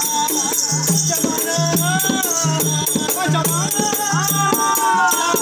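Live Telugu street-theatre music: a voice sings a winding melody over steady high jingling percussion and a low beat that pulses about twice a second.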